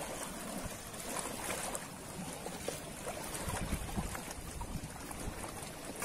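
Ocean waves washing on the shore: a steady rush of surf.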